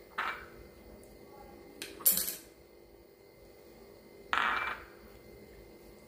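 Brief handling and rubbing noises as face-pack paste is spread over the arms by hand, with one sharp clink about two seconds in, the loudest sound.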